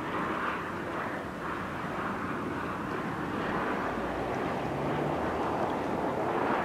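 Jet engines of a Boeing 737-800 airliner on final approach with its landing gear down, a steady rushing roar that grows a little louder from about three seconds in.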